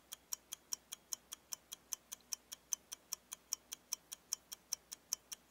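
Clock ticking as a quiz countdown sound effect, even ticks at about four a second, marking the thinking time before the answer is given.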